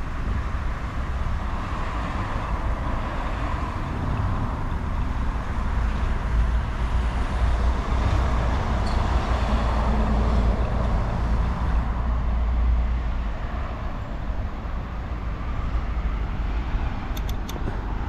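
Road traffic noise: a steady low rumble of passing vehicles that swells toward the middle and eases off.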